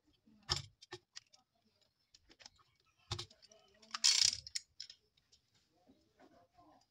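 Hands working the parts of a bamboo slingshot: scattered sharp clicks and knocks of wire and rubber tubing against the bamboo, with a louder brief scraping rush a little after four seconds in.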